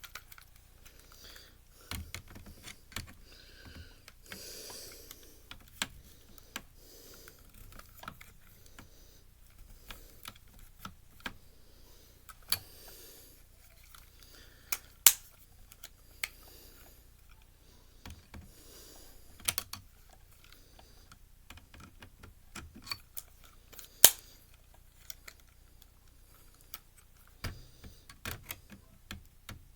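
Irregular clicks, taps and light knocks of plastic and metal parts being handled as a Blu-ray player is taken apart by hand, with brief rustling in between. Two sharper clicks stand out, one about halfway through and one later on.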